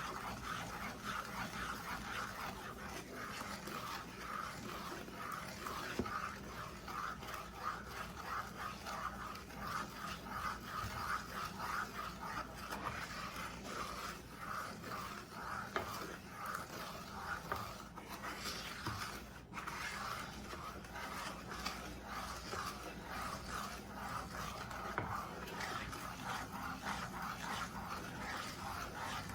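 A dog panting with a rapid, steady rhythm.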